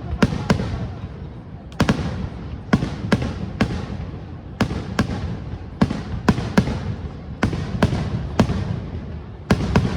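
Aerial fireworks bursting in quick succession, a sharp bang every half second to a second, each with a short echoing tail.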